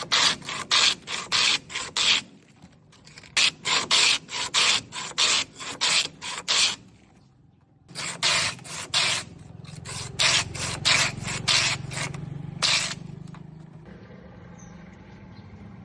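A block of ice being shaved by hand: quick rasping scrapes, about two to three a second, in runs with a short pause in the middle. The strokes stop near the end, leaving a faint low hum.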